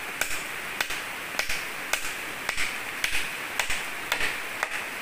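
Short sharp clicks about twice a second from cord being wrapped and pulled tight around a bamboo beam lashed to a tree trunk, over the steady rush of a river.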